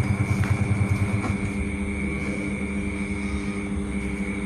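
An engine running steadily with a rapid low throb that eases about a second and a half in.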